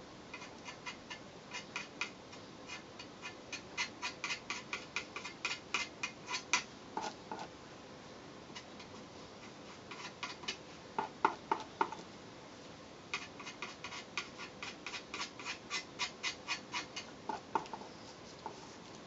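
Small applicator dabbing and working glue onto a masked composite pole section to build up its worn surface: runs of quick, sticky ticks, several a second, in three spells, with a few brief squeaks among them.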